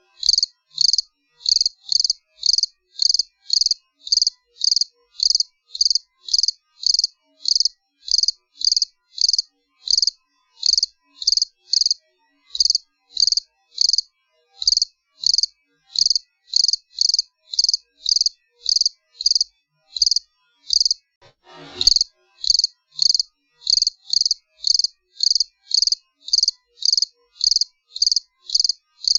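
A cricket chirping steadily, about two short high-pitched chirps a second. A brief rising rush of sound cuts in once about three-quarters of the way through.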